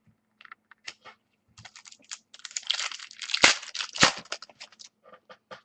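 Foil wrapper of a football card pack crinkling and tearing as it is opened, with the cards clicking as they are handled; two sharper clicks a little past the middle.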